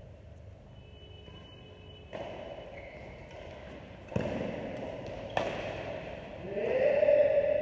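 Badminton rally: three sharp racket strikes on a shuttlecock, spaced a second or two apart, then a drawn-out squeal that rises in pitch and then holds near the end, the loudest sound.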